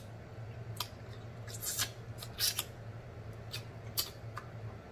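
Close-miked wet mouth sounds of eating neckbones by hand: sharp lip smacks and sucking clicks, about half a dozen, spaced irregularly, over a low steady hum.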